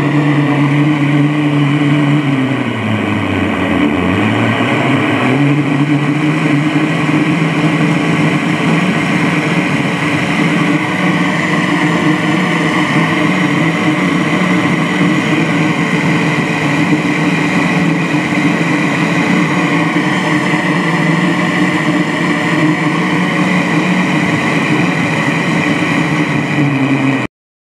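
Shmel-2 petrol primus stove burning at full flame, a loud steady rush with a low hum whose pitch sags and comes back about two to five seconds in. It is burning well after its jet was cleared with a new pricker needle. The sound cuts off suddenly near the end.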